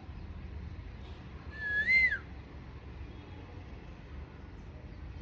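A pet parrot gives one short whistle about a second and a half in: it holds a note, then swoops up and back down. A steady low rumble runs underneath.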